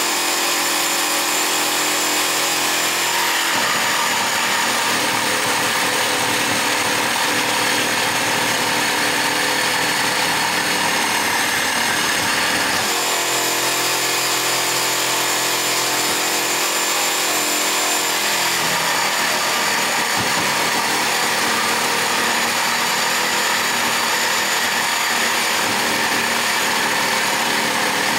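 Jigsaw mounted blade-up under a jigsaw table, running continuously and sawing through a 5 cm thick piece of wood. Its motor note shifts a few times as the cut goes on.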